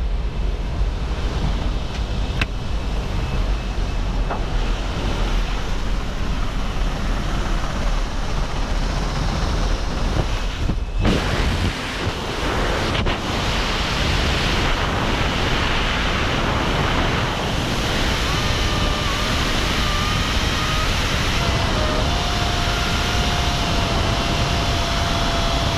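Steady rushing wind and aircraft noise on a helmet camera's microphone: first the jump plane's cabin at the open door, then, after a brief drop-out, the airflow of wingsuit freefall. Faint, wavering high whistles run through the second half.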